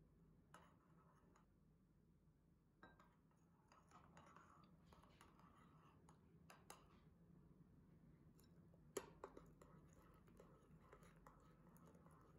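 Faint scraping and light clinks of a metal spoon stirring dry cocoa powder in a ceramic bowl, with a handful of sharper clicks, the loudest about nine seconds in.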